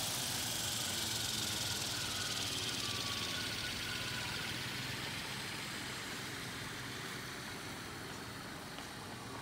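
SAB Goblin RAW 700 electric RC helicopter spooling down on the ground with the motor cut: a whine falling in pitch over a rushing noise from the spinning rotor, the whole fading steadily as the blades slow.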